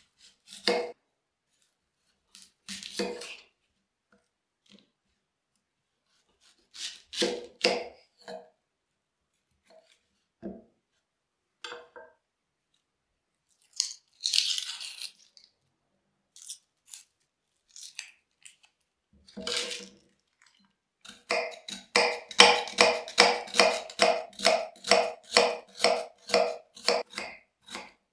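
Kitchen knife cutting an onion on a wooden cutting board: a few scattered cuts and knocks on the board, a crackle of dry onion skin being peeled off about halfway through, then steady slicing strokes, about three a second, through the last third.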